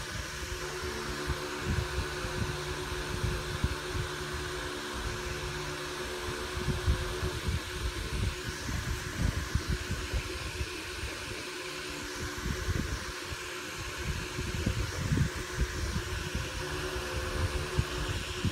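A steady mechanical whirr: a hum with a hiss over it, with irregular low bumps and rustles from hands handling things close to the microphone.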